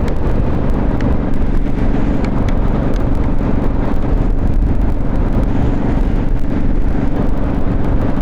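Motorcycle engine running at a steady cruising speed, with wind buffeting the rider's lavalier mic.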